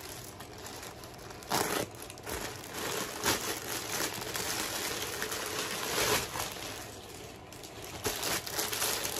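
Clear plastic packaging bag crinkling and rustling as it is handled and opened, with a few louder crackles.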